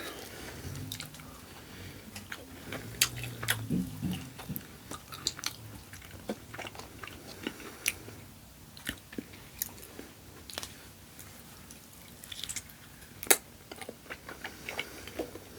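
A person chewing and biting food close to the microphone, with many short, irregular wet clicks and smacks of the mouth.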